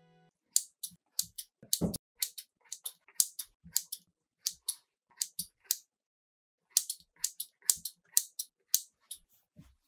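Scissors snipping through soft bread dough: a quick run of crisp snips, about three a second, with a short break midway.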